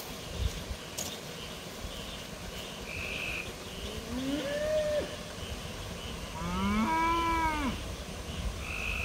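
Cattle mooing twice: a shorter call about four seconds in, then a longer one about two seconds later, each rising in pitch and then holding.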